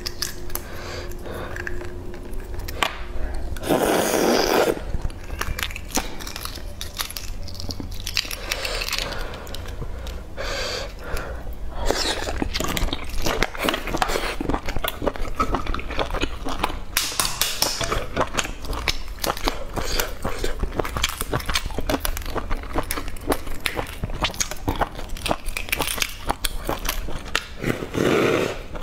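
Eggshells crackling and crinkling in a steady run of small irregular clicks as eggs are cracked and peeled by hand, with close-up chewing and a bite near the end.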